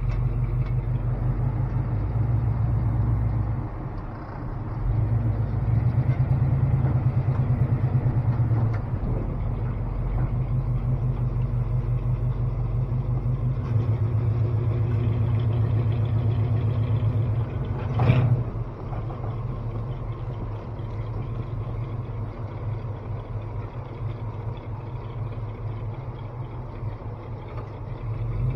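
1978 Chevrolet pickup's engine running as the truck is driven through snow, heard from inside the cab. It picks up a few seconds in and eases off again. A sharp knock comes about two-thirds of the way through, and then the engine runs steadier and quieter.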